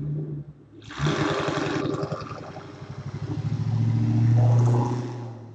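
Engine noise from a motor vehicle that starts about a second in, grows to its loudest around four seconds in, then fades away.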